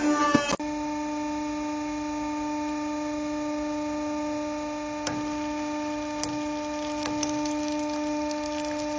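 Steady electrical hum with a clear pitch and even overtones, broken by a brief clatter of clicks at the start and a few faint ticks later on.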